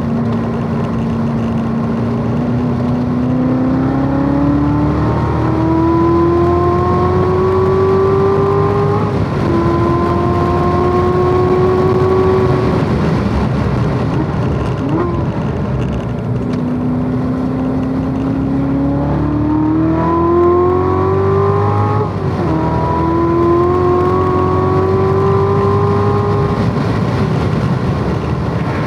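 Corvette Z06 V8 engine at full throttle on a track lap. The revs climb steadily, with an upshift about nine seconds in and another about twenty-two seconds in. Between these pulls the revs fall away, around the middle and again near the end.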